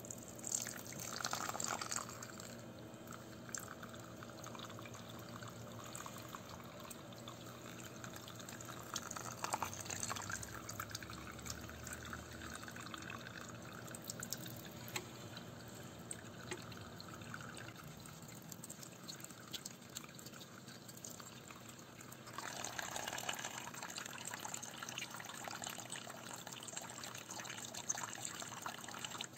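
Water running from a tap into a small sieve cup of soil in a sink, splashing and draining as a 100 g soil sample is washed through the sieve. The flow gets louder about three-quarters of the way through.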